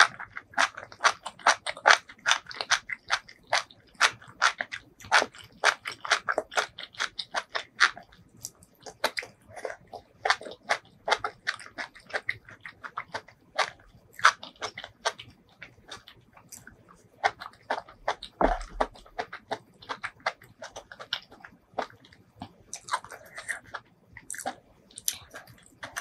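Close-miked chewing of spicy sauced seafood and mushrooms: rapid crisp crunches and wet mouth clicks, thinning out after about eight seconds, with one dull bump about eighteen seconds in.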